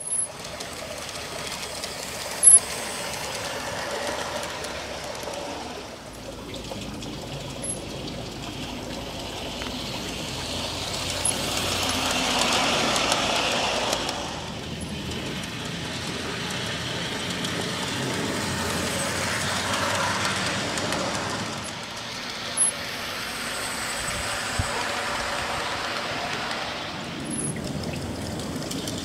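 G-scale model 4-4-0 steam locomotive and passenger car running on garden railway track: a steady rumble of wheels on rail that grows louder as the train passes close, and again later. There are a couple of sharp clicks.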